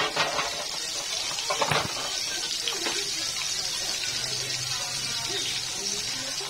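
Milkfish steaks frying in hot oil in a wok: a steady sizzle, with a few sharper crackles near the start and about two seconds in.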